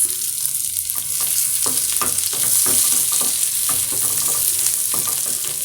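Chicken gizzards and onions sizzling as they fry in oil, with a utensil scraping and clicking in the pan as they are stirred.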